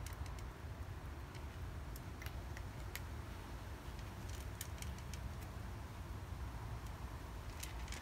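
A cat eating dry kibble from a clear plastic dish: small, irregular crunches and clicks, bunched about halfway through and again near the end, over a steady low rumble.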